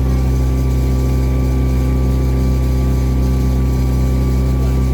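A cruise boat's engine running at a steady speed: a constant low hum.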